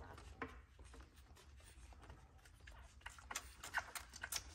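Boston terrier lapping water from a stainless steel bowl: a run of quick, wet clicks that come thicker and louder near the end.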